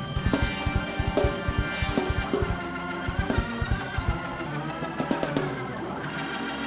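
Church band music: fast, driving drums under organ, the drums dropping out about four seconds in and leaving held organ chords.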